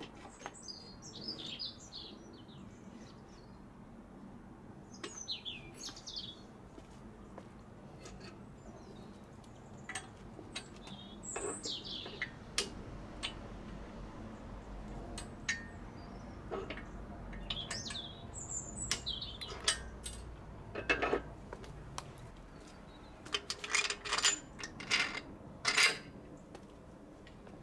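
Small birds chirping now and then, with intermittent metallic clinks and knocks from handling an engine block on an engine stand. The knocks come most thickly and loudest near the end.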